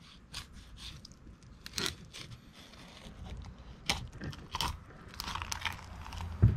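Fillet knife cutting through raw bluefin tuna along the spine to free the bottom loin: irregular wet crunches and scrapes, with a single loud thump near the end.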